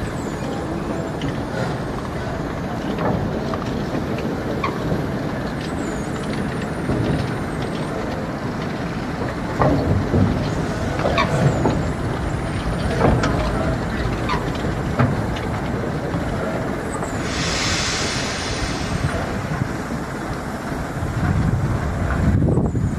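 A train of locomotives rolling slowly along the track during shunting: a steady rumble with scattered knocks from the running gear, and a hiss lasting about two seconds a little past the middle.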